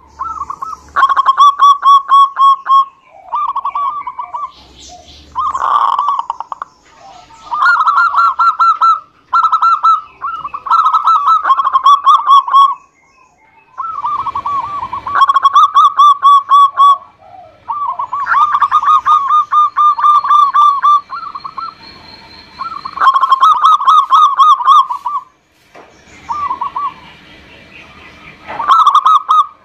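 Zebra dove (perkutut) cooing: a string of phrases, each a fast run of staccato coo notes, repeated about a dozen times with short pauses between.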